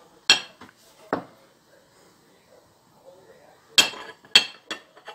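Ceramic dishes clinking as a small sauce bowl is moved about on and against a serving plate: two sharp clinks in the first second or so, then a quick run of three about four seconds in.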